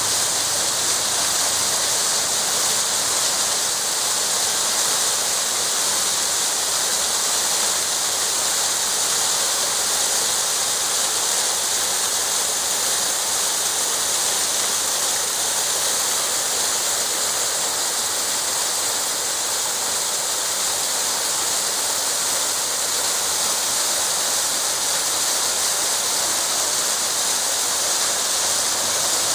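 Small waterfall: a steady, unbroken rush of falling and splashing water.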